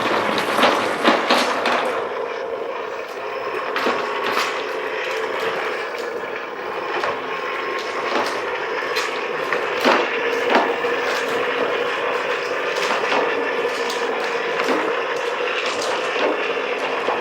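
TWOLF TW-715 RC crawler driving at high speed on a wooden tabletop: a steady whine runs under repeated sharp knocks and clatter as the wheels and body strike the wood.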